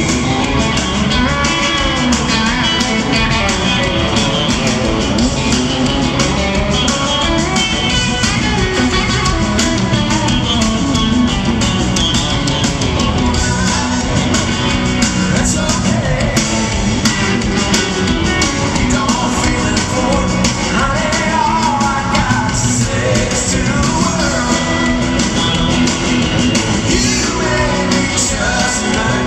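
Live country band playing at full volume with electric guitars, drums and a lead vocal, heard from the crowd in an arena.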